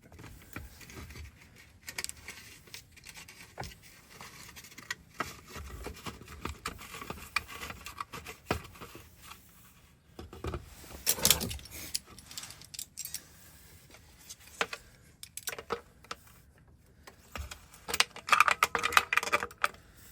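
Keys and small metal lock parts being handled: scattered clicks and jangling, with a louder clatter about eleven seconds in and a quick run of clicks near the end.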